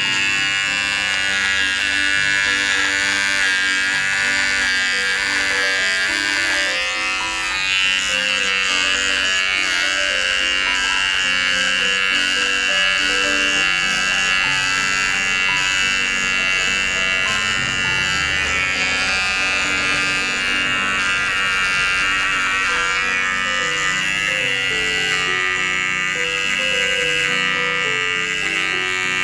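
GSE GS-007 cordless mini shaver buzzing steadily as it is run over chin stubble, with background music.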